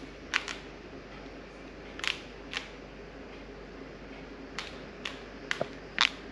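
Buttons on a handheld Panasonic air-conditioner remote being pressed: about ten short plastic clicks at irregular intervals.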